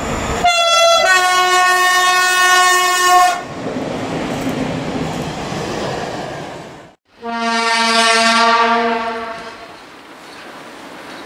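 Railway locomotive horns: one horn blast of about three seconds that steps down to a lower pitch after half a second, then the rushing noise of a passing train. After a short cut comes a second, lower horn blast of about two seconds, and then quieter station background.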